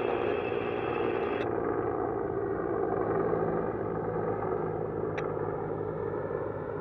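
Bell 412 helicopter flying overhead: a steady drone of rotor and turbine engines. A thin, high steady tone above it stops about a second and a half in.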